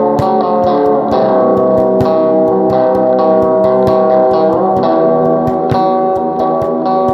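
Guitar music with a steady beat: sustained chords with plucked guitar over them, changing chord about a second in and again a little past the middle.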